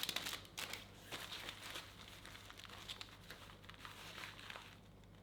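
Faint crinkling and rustling of crinkly material being handled, with small scattered crackles, busiest in the first second and dying away toward the end.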